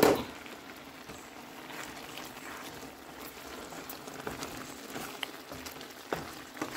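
Mussel curry simmering in a pan, bubbling steadily with scattered small pops.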